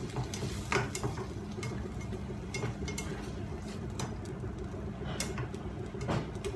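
A spatula scraping and knocking against a frying pan as sliced onions and tomatoes are stirred, with scattered knocks over a steady low hum.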